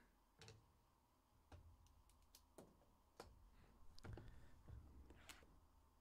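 Near silence, broken by faint scattered clicks and light knocks as cardboard trading-card hobby boxes are picked up and handled on a table.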